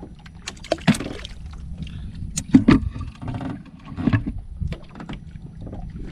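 Scattered knocks and thuds from handling gear and catch in a small fishing boat, the loudest about two and a half seconds in, over a low steady background of water sounds against the hull. The knocks come as a squid is taken off the handline and dropped into a basin.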